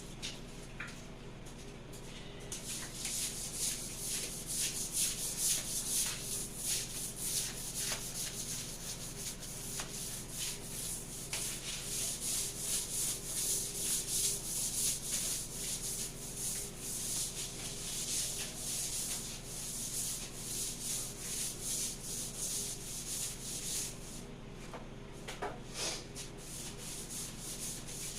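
Broom bristles scrubbing a floor in rapid repeated scratchy strokes, with a short break near the end.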